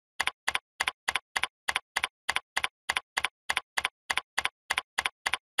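Computer keyboard keystrokes at an even pace, about three and a half a second, each a short double click.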